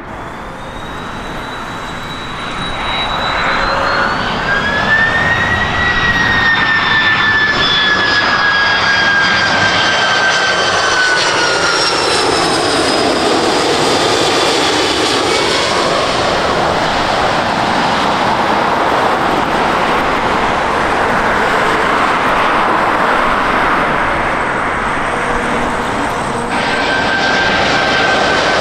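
Airbus A330-200 jet airliner on landing approach passing low overhead: a steady engine roar with a high whine that slowly falls in pitch as it goes by. Near the end the sound cuts to another jet airliner's engine whine.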